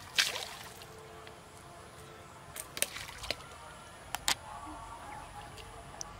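Bamboo fishing poles whipped up out of the water and swung back out: a sharp swish at the start, then a few more short swishes and flicks around three and four seconds in.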